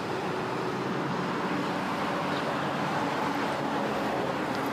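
Steady car noise: road hiss with a faint low engine hum.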